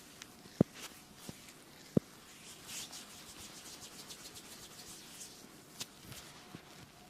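Three sharp taps in the first two seconds, then a quick run of scratching or rubbing strokes, fading out near the end.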